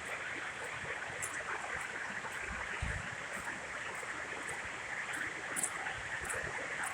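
A steady rushing noise like running water, with a few faint, sharp high ticks now and then.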